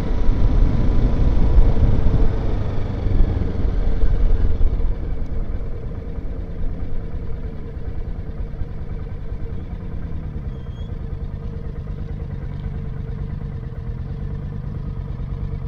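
Motorcycle engine running at low road speed, mixed with the rush of wind and road noise, which eases about five seconds in and leaves the engine's steady running sound with small changes in pitch.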